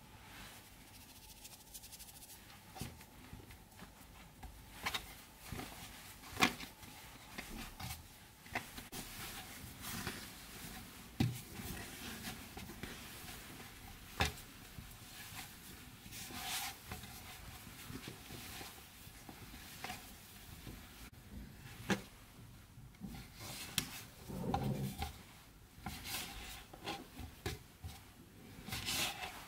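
Hands kneading fresh spinach pasta dough on a floured wooden cutting board: soft rubbing and pressing, broken by a few sharp knocks of the dough and hands against the board.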